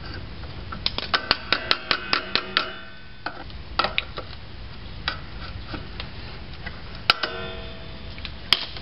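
Steel pliers clicking and tapping against the parking brake lever's cable pin as it is worked free: a quick run of sharp metallic clicks about a second in, some ringing briefly, then scattered single clicks, the loudest with a short ring near the end.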